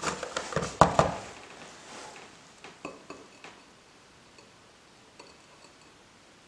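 A metal spoon clinking against dishes, loudest about a second in, then a few light ticks and scrapes as it is worked into a glass dish of sublimed ammonium chloride crystals.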